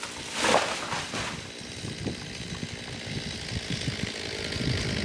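Chainsaw running, with a short loud surge about half a second in, then running steadily at a lower, even speed.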